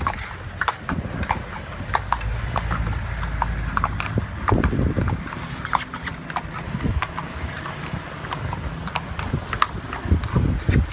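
Horse pulling a carriage, its hooves clip-clopping in a steady rhythm of a few beats a second on a paved road, over a low rumble of the rolling carriage.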